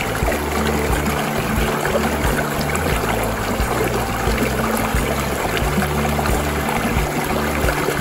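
Small stream of water running and splashing over a low drop between rocks, a steady rush. Low sustained music notes sit underneath.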